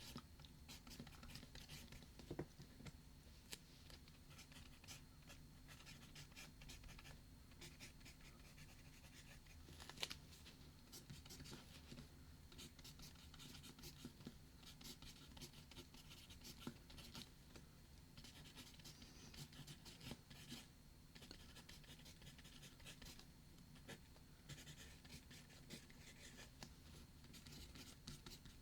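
Faint writing on paper: a pen or pencil scratching in short irregular strokes, with a sharper tap about ten seconds in.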